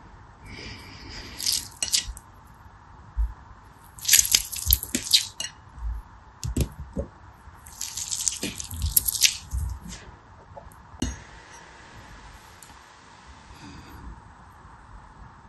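Wet gel water beads stirred and scooped by hand in a plastic tub: three bursts of wet clicking and clattering as the beads knock together, with soft knocks in between.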